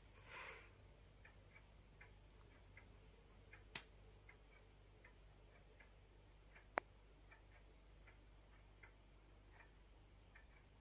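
Near silence: faint soft ticks at an uneven pace, a brief breathy rush at the very start, and two sharp clicks about four and seven seconds in.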